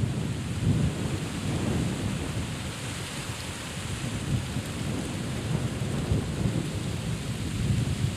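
Wind buffeting the microphone in irregular low rumbling gusts over a steady hiss.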